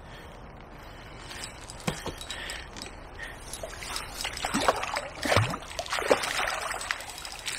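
Hooked barbel splashing and thrashing at the river surface as it is drawn toward a landing net; the splashes are scattered at first and come thick and loud through the second half.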